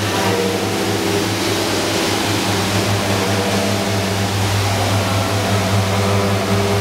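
Electric rotary beading machine for round duct running with no sheet in its rollers, its motor giving a steady low hum.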